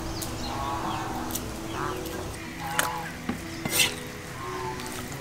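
A knife cutting raw pork on a wooden chopping board: a few sharp knocks and slicing clicks, mostly in the second half, with faint steady tones in the background.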